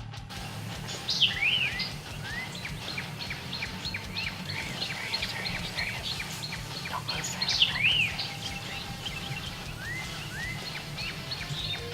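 Songbirds chirping and singing, many short repeated chirps that sweep up and down in pitch, over a steady low background rumble.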